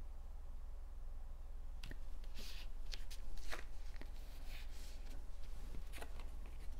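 Card stock handled and fitted into place by hand: light paper rustles, slides and small taps, scattered from about two seconds in.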